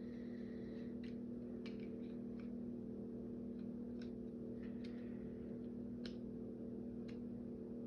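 Small plastic toy parts clicking and tapping as they are handled and fitted together, with about eight light, irregular clicks over a steady low hum.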